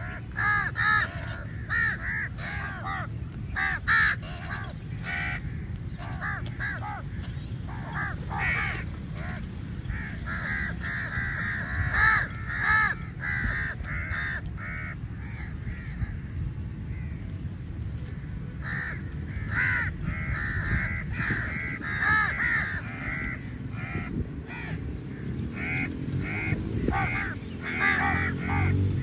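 A flock of crows cawing over and over, many calls overlapping and following one another in quick runs, over a steady low background noise.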